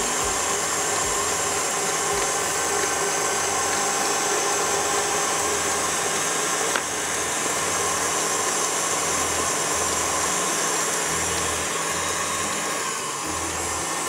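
KitchenAid stand mixer running steadily, its beater creaming butter and sugar with eggs in the steel bowl.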